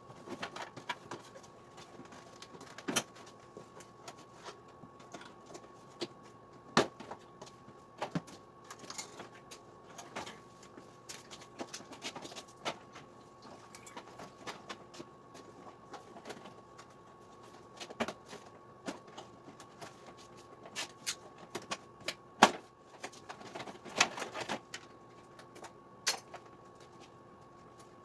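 Hand work on a scooter: irregular clicks, taps and knocks of tools and plastic body parts being handled, over a faint steady hum.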